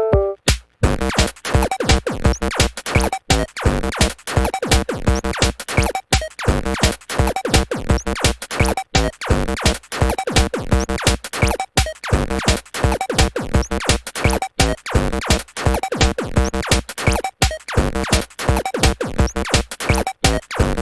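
Electronic music with a fast, steady drum-machine beat and repeating synthesizer parts, the full arrangement coming in about a second in after a few bare drum hits.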